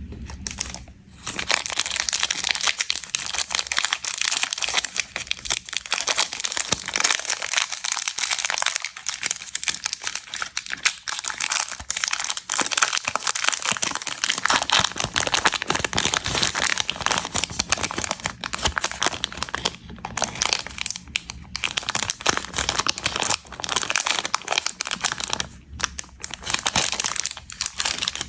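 Plastic snack wrappers being crinkled and torn open, a dense continuous crackle with a few short breaks.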